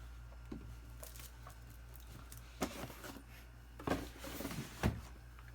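Faint rustling and scraping of a laptop box being slid out of its packaging box, with a few soft knocks.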